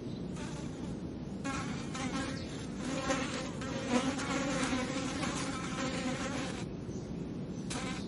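A fly buzzing in flight on and off: a faint short buzz under a second in, then a wavering buzz from about a second and a half in that rises and falls for about five seconds, loudest near the middle, and stops, with another brief buzz near the end. Steady low background noise runs underneath.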